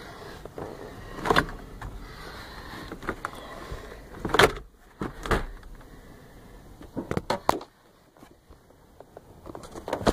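Scattered clicks and knocks of hand work on the truck's quarter-window fittings, with louder knocks about a second and four and a half seconds in and a quick run of clicks around seven seconds.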